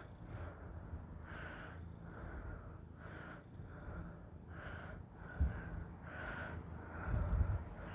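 Russian Blue cat purring at close range, with heavy breathing going in and out about every three-quarters of a second over it. Two dull thumps come about five and a half and seven seconds in.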